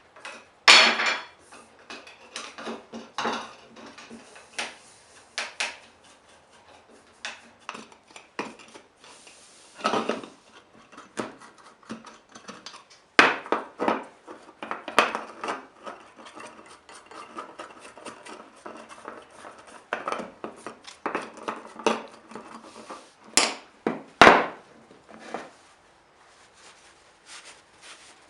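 Irregular metallic clinks, knocks and clatter of blacksmithing tools and steel stock being handled, with a few sharper strikes and no steady hammering rhythm.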